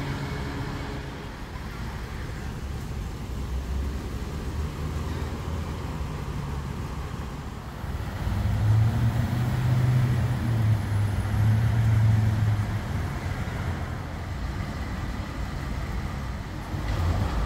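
Street traffic: motor vehicles running past, with a louder low engine drone for about four seconds in the middle.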